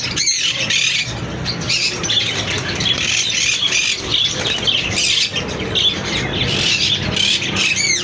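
A flock of caged parakeets squawking and chattering all at once: a dense, unbroken chorus of shrill overlapping calls.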